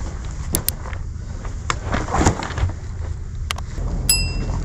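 Wind noise on the microphone, with scattered knocks and rustling as bags are handed down from a steel ore wagon. A short, bright ringing ding comes about four seconds in.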